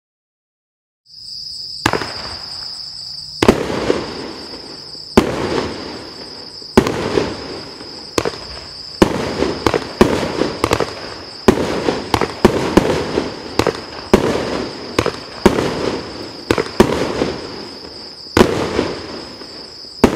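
Evolution Fireworks 'Red Ghosts', a 16-shot 25 mm firework cake, firing. Sound starts about a second in. Sharp shots follow every second or so, coming faster toward the end, each trailed by crackling from the bursting stars.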